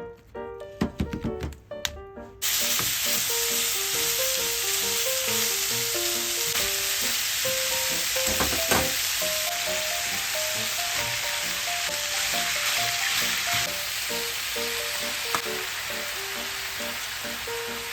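Food hitting hot oil in a frying pan about two seconds in, then sizzling steadily, after a few sharp knocks from pan or utensils.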